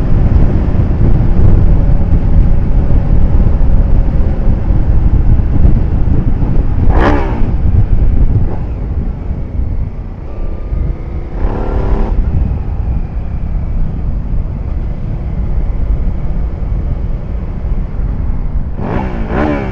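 Suzuki SV650S V-twin motorcycle being ridden, its engine running under heavy wind noise on the helmet microphone. About seven seconds in and again near twelve seconds there are two brief, louder pitched sounds, and the level drops a little after the first.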